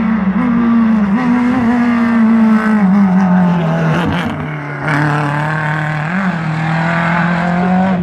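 Renault Clio rally car's engine running hard as it passes, its note dropping about three seconds in and then holding steadier, with a short rise near six seconds.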